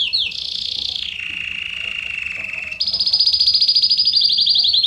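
Belgian canary singing a loud run of rapid trills: a high trill, a lower trill from about a second in, then a fast high trill again from about three seconds in that steps slightly lower near the end.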